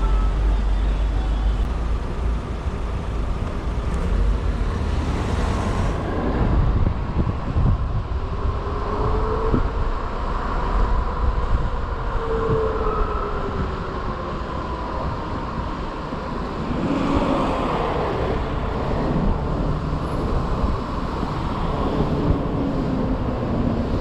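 Street noise heard from an electric moped on the move: steady low rumble from wind and road, with a whine that rises and falls a couple of times near the middle, and passing traffic.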